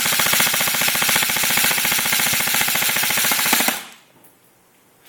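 Airsoft gun firing a long, rapid full-auto burst of BBs, which stops about four seconds in.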